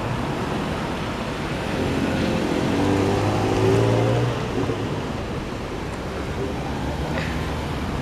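Road traffic passing close by: cars and a minivan driving across a railroad grade crossing, with one vehicle's engine hum swelling loudest about three to four seconds in.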